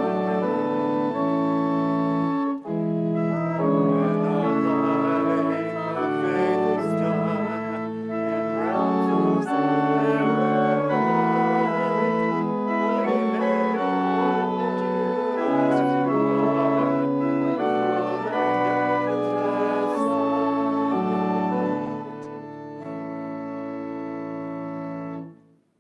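Church organ playing a slow piece in sustained chords. Near the end it softens to a final held chord that stops just before the pastor speaks.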